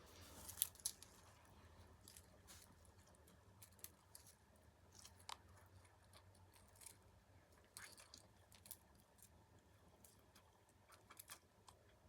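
Quiet eating sounds: chewing with scattered crunches and clicks, the two loudest clicks about half a second in.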